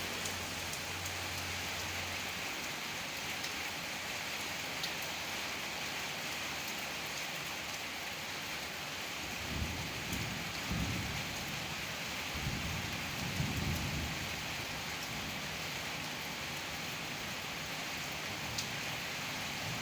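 Steady rain falling, with scattered single drops ticking. About halfway through, two low rumbles of thunder roll in one after the other.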